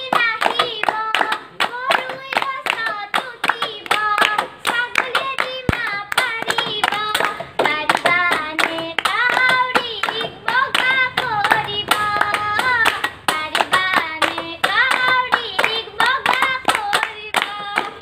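A girl singing a song unaccompanied, with hand claps keeping a fast, steady beat, about four claps a second.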